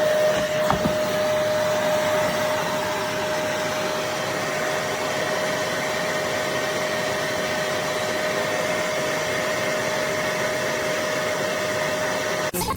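BISSELL Little Green portable upholstery cleaner's motor running: a steady rushing suction noise with a constant whine through it and a short click near the start.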